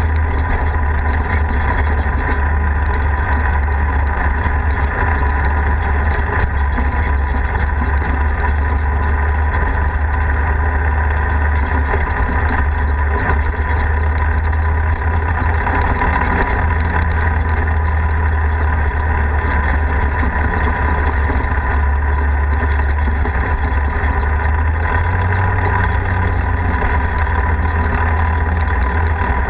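Polaris RZR 4 side-by-side's engine running steadily while driving along a dirt road, with a constant heavy low rumble and no letting up.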